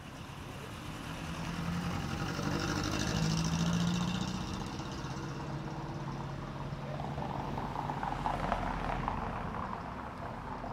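Street traffic: a car drives past, its engine rising to a peak about three to four seconds in and then fading. A second car passes in the last few seconds, mostly tyre noise.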